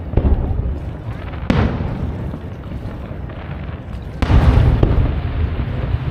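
Aerial firework shells bursting: four booms, the loudest about four seconds in, each trailing off into a rolling rumble.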